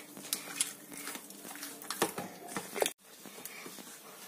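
A hand kneading soft, sticky maida dough made with curd in a stainless steel bowl: quiet, irregular slaps and small clicks as the dough is pressed and worked against the bowl.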